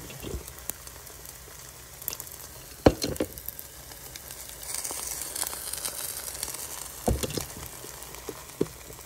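Spinach wrap batter frying in an oiled pan, a steady sizzle. A few short, sharp knocks sound over it, the clearest about three seconds in and again about seven seconds in.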